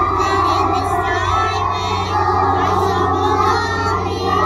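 A large group of young children singing a song together, with music playing along.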